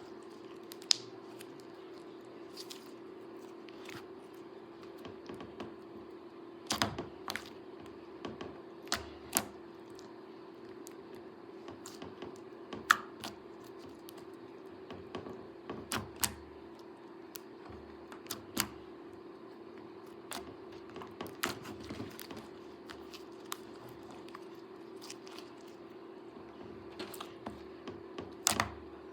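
Silver-blue slime being handled and pressed by hand, giving irregular sharp clicks and pops, some in quick pairs, over a steady low hum.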